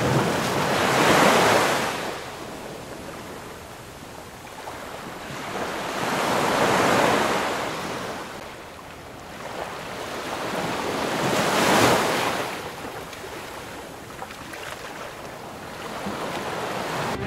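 Ocean surf breaking against rocks. Three big swelling rushes of crashing water about five seconds apart, with quieter washing in between.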